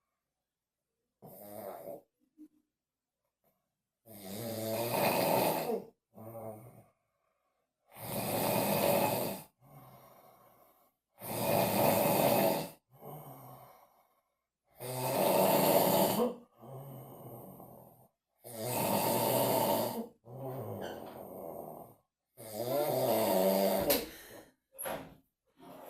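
An elderly man snoring in his sleep: six long snores about every three and a half seconds, each followed by a quieter breath out.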